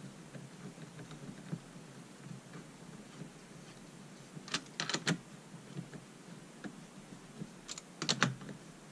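Small metallic clicks and ticks of a nut driver turning down the nuts that hold an intake block-off plate on a chainsaw crankcase. A cluster of sharper clicks comes about halfway through and another near the end.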